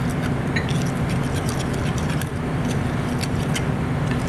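A spoon stirring cornstarch and water in a small bowl, with quick, light ticks and clinks against the bowl's side, over a steady low hum.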